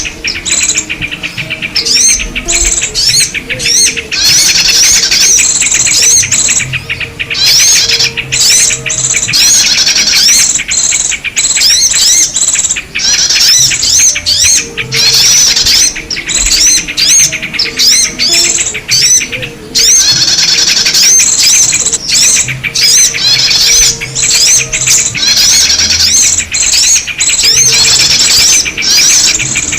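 Bird-lure recording of a dense chorus of small birds chirping and twittering in fast, overlapping calls, played loud to draw in yellow-vented bulbuls and other small birds. It carries on almost without a break, with a few short dips.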